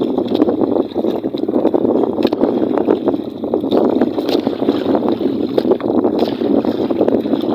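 Steady rushing and washing of water around a small fishing boat, with wind on the microphone and scattered light clicks and taps as a longline with its hooks is hauled in by hand.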